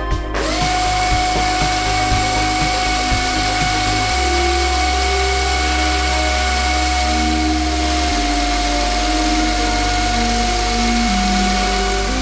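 Pneumatic automated drilling unit starting its automatic cycle: its whine rises quickly to a steady high pitch just after the start and then runs on evenly with a hiss of air. Background music plays underneath.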